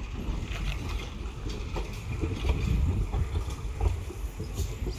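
ICF passenger coaches rolling slowly past during shunting: a low, uneven rumble of wheels on the rails with scattered clicks and knocks.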